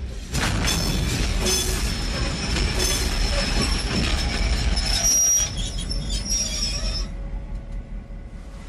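A train running at speed on the rails: a heavy rumble with steel wheels squealing in high, thin tones. The noise drops away about seven seconds in.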